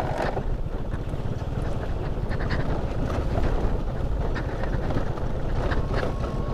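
A small motorcycle's engine running at low speed while riding over a rough gravel lane, with wind buffeting the helmet-mounted microphone and scattered knocks and rattles from the bumpy surface.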